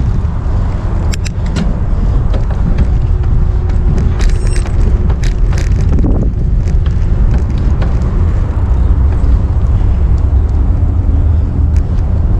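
Steady, loud wind noise on the microphone over vehicle road noise while riding, with a few scattered clicks.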